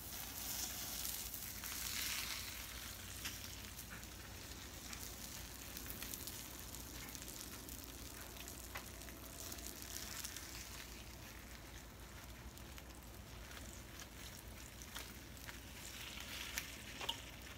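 Chicken and sausage sizzling over the open flames of a charcoal kettle grill, with grease dripping onto the coals and flaring into a grease fire. A steady sizzling hiss swells a few times, with a few sharp clicks.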